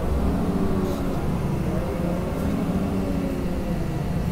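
Public bus running along a road, heard from inside the passenger cabin: a steady low rumble of engine and tyre noise with a faint hum that shifts a little in pitch.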